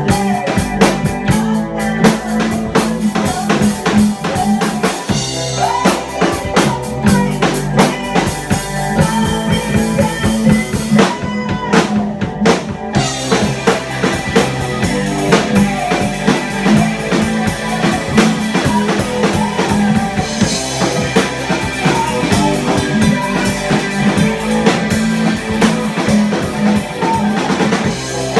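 Rock band playing live in a small room: a drum kit with bass drum and snare hits, electric guitar and bass guitar, loud and continuous. The high end briefly thins out about eleven seconds in before the full band comes back.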